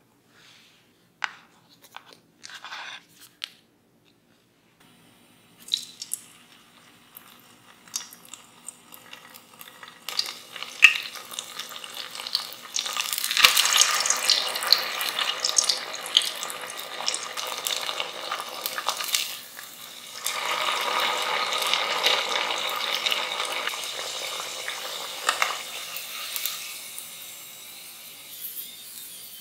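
Potato cubes in a flour-and-cornstarch batter deep-frying in hot oil, sizzling and crackling densely. The sizzle starts about a third of the way in, is loudest through the middle, and dies down near the end. Before it come a few soft taps and rustles of the coated cubes being handled on parchment paper.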